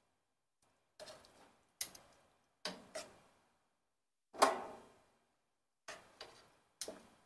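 Sharp clicks and knocks on a grill grate as chicken wings are set down one by one: about eight, unevenly spaced, each ringing briefly, the loudest about four and a half seconds in.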